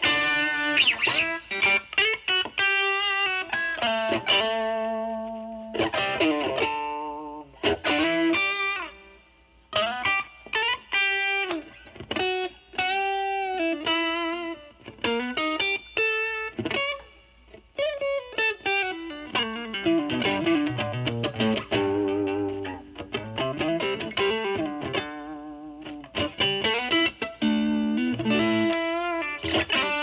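Stratocaster with single-coil pickups played through a DOD FX102 Mystic Blues Overdrive pedal into a Marshall Valvestate amp's clean channel: bluesy single-note lines and chords with light drive. The overdrive is cleaned up from a 12–1 o'clock drive setting, so the tone is only lightly broken up. Playing pauses briefly twice.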